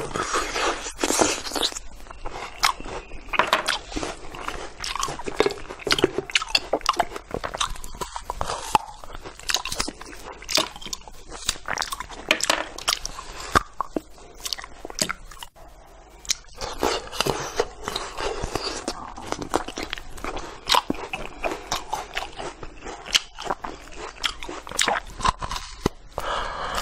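Rambutans being eaten close to a clip-on microphone: the fruit bitten and chewed in a dense run of small crunches and clicks, with a brief lull partway through.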